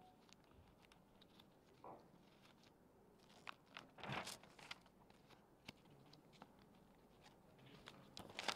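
Faint handling of papers at a desk, picked up by the desk microphone: scattered small clicks and taps, with a louder rustle of paper about four seconds in.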